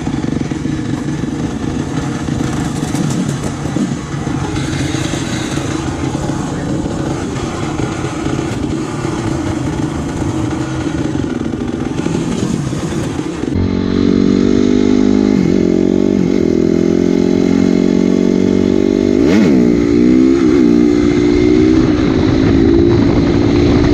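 Honda CRF250R single-cylinder four-stroke engine idling with a steady drone, another dirt bike passing a couple of seconds in. After a cut about halfway through, the engine runs louder under load while riding, its revs dipping and rising briefly a few times.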